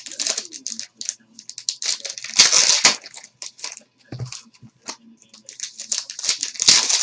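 Trading-card pack wrappers being torn open and crinkled by hand in a string of crackly bursts. The loudest tear comes about two and a half seconds in, and another comes near the end.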